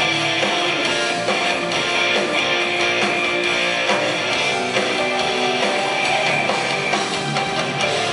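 Live hard rock band playing: electric guitars over bass and drums, heard from the audience in the hall.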